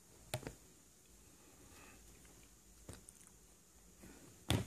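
A few short taps and knocks from a toddler handling a cardboard board book: two light ones near the start, another about three seconds in, and a louder knock near the end.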